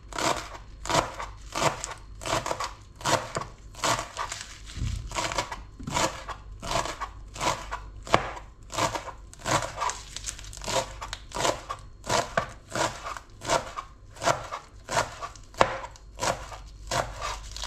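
Kitchen knife chopping spinach leaves finely on a plastic cutting board, a steady run of strokes about three a second.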